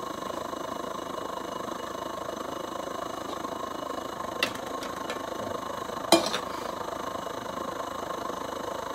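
Vintage Primus pressure stove burning steadily under a pot inside an aluminium windshield, a steady rushing burner noise. Two sharp metal clinks of the aluminium pots, about four and a half and six seconds in, the second louder.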